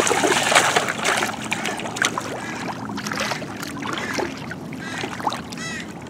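Water splashing and sloshing in shallow sea water as a child wades and dunks a plastic toy dump truck under. The splashing is heaviest in the first second, then lighter sloshing and scattered splashes follow.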